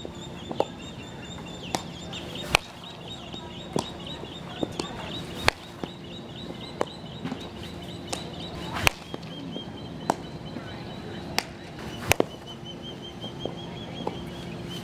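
Sharp cracks of a softball infield drill, the bat striking balls and balls smacking into leather gloves, the loudest about every three seconds. Birds chatter steadily underneath in quick high repeated notes.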